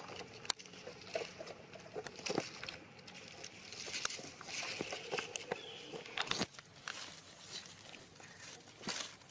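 Soft rustling and scattered small clicks from a long-tailed macaque handling a paper drink carton at its mouth, with one short high chirp about halfway through.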